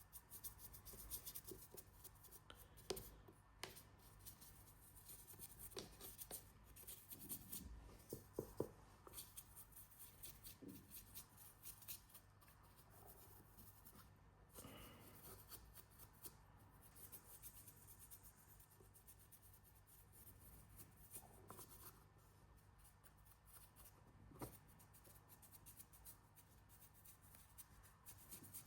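Faint paintbrush strokes on a 3D-printed figure, with small scattered taps and handling noises.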